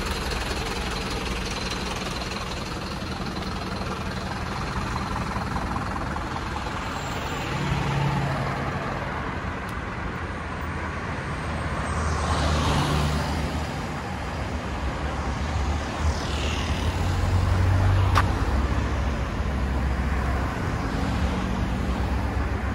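Street traffic: vehicle engines running, with several cars and heavier vehicles passing close by, the loudest pass-bys about twelve and seventeen seconds in. A single sharp click sounds near eighteen seconds.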